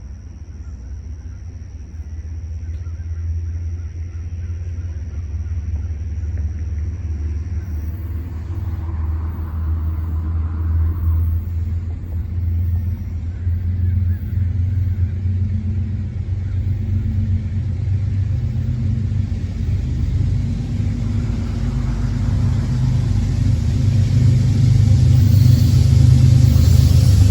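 Low rumble of an approaching Iowa Interstate Railroad diesel locomotive, growing steadily louder as it nears.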